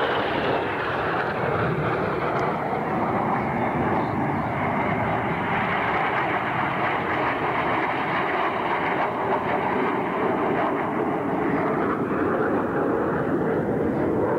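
Red Arrows BAe Hawk jets flying past in formation: steady jet engine noise from their Adour turbofans.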